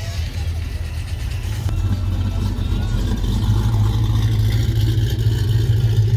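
A car engine running with a steady low-pitched sound, growing louder from about two seconds in.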